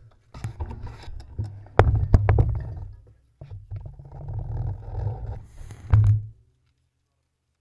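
Handling noise through a handlebar-mounted action camera as the road bike carrying it is moved: low rumbling with sharp clicks and knocks. It stops abruptly a little over six seconds in.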